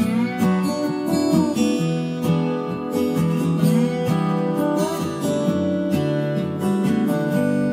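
Background music: strummed acoustic guitar with some sliding notes.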